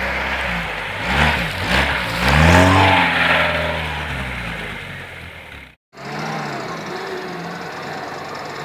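Lada Niva's engine revving up and down several times as it drives off through mud, then fading away. After a sudden brief dropout, a quieter off-road vehicle engine runs steadily.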